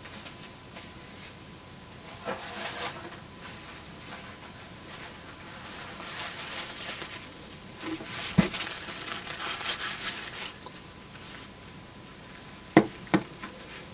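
Wiping and handling the small LCD screen of an SJ1000 action camera while cleaning it, heard as stretches of rubbing. There is a sharp knock about eight seconds in and two sharp taps close together near the end.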